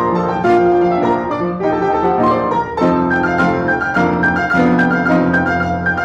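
Upright piano played four hands, a duet with many quick notes struck in close succession.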